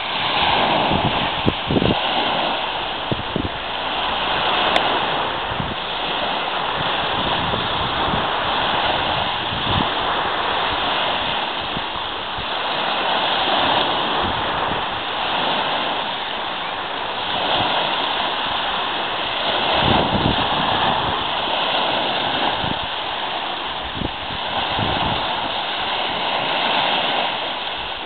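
Small sea waves breaking and washing up a sand-and-pebble shore: a steady surf hiss that swells and eases every few seconds, with scattered brief low thumps.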